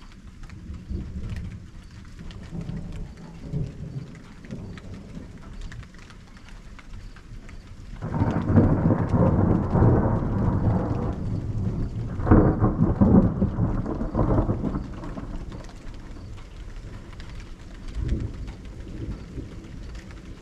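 Thunder rumbling low, then two loud peals about eight and twelve seconds in that each roll on for a few seconds before dying back to a rumble.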